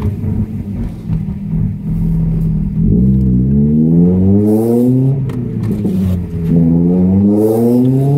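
Ford Focus ST170's 2.0-litre four-cylinder engine with a decat and RS Mongoose exhaust, heard from inside the cabin. It runs low and uneven at first, then revs up through the gears twice, about 3 seconds in and again from about 6.5 seconds, with a drop in pitch between as the throttle is lifted. A few short crackles come on the lift-off.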